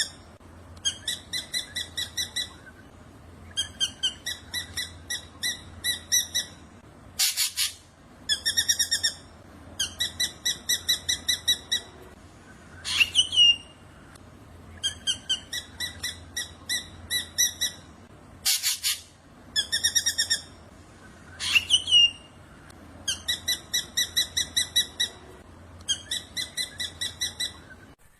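Black drongo (srigunting hitam) singing: repeated phrases of quick ringing notes, about every two seconds. Twice the phrases are broken by a loud harsh call, and twice by a short whistled sweep.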